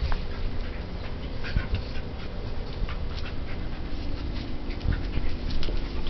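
Two dogs play-fighting: scuffling and mouthing, with many short, irregular clicks and taps.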